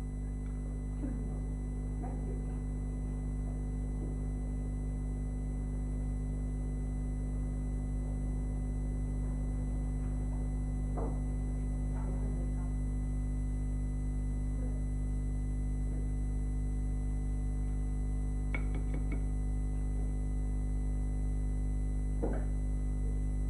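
Background music: a steady, unchanging synthesizer drone, with a few faint brief sounds.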